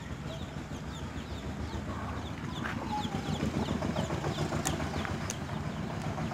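Chickens clucking, with many short falling chirps repeating, over a low steady rumble. A few sharp clicks come in the second half.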